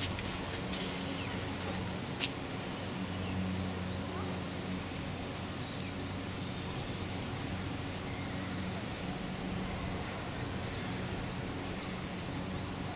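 A songbird calling over and over, short high chirps about every two seconds, against a steady low hum. A single sharp click about two seconds in.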